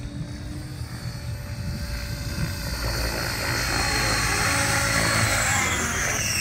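Tron 7.0 electric RC helicopter descending and flying in low: rotor and motor whine growing louder over the first few seconds, with a high whine that falls in pitch near the end.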